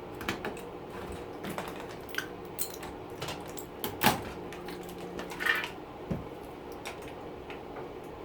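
Scattered clicks, knocks and light metallic clatter of dishwasher parts being handled during a teardown, with one louder knock about four seconds in, over a steady low hum.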